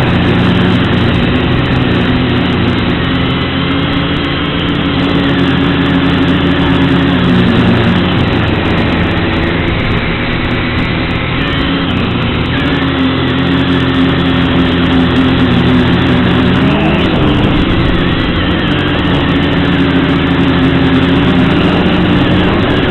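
XK X250 quadcopter's motors and propellers whining in flight, the pitch dipping and rising as the throttle changes.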